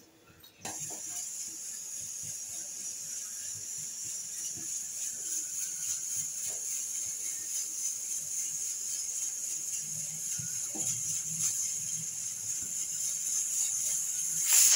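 Steam hissing steadily from a pressure cooker's weighted whistle vent as pressure builds, starting about half a second in. It swells into a brief louder rush just before it cuts off.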